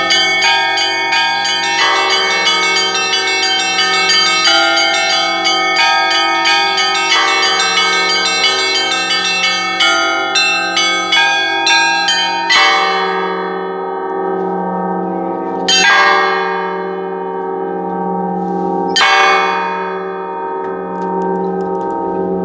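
Church bells rung in the Russian manner: a fast, dense peal of bells over deeper ringing tones, which breaks off about halfway through. Three single strikes follow about three seconds apart, each left to ring out.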